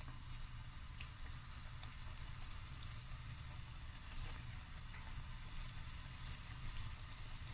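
Yeast-dough koesisters deep-frying in a pot of hot oil: a steady sizzle and crackle of bubbling oil, a little louder about four seconds in as another piece of dough is lowered in.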